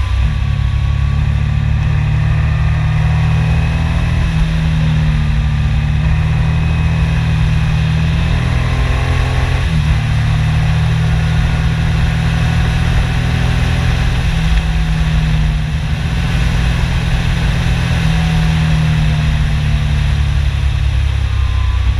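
Yamaha MT-09 Tracer's three-cylinder engine running on the move, its note rising and falling with throttle and gear changes, under a steady rush of wind and road noise.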